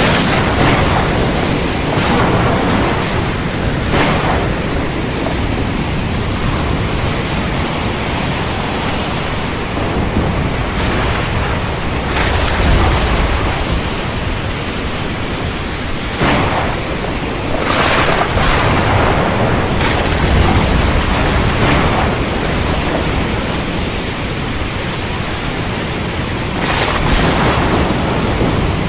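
Steady heavy rain, with thunder rumbling several times, deepest around the middle.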